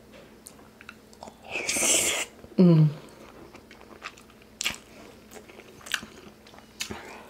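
Close-miked chewing and biting of food, with scattered crunches and wet mouth clicks, and a short falling "mm" about two and a half seconds in.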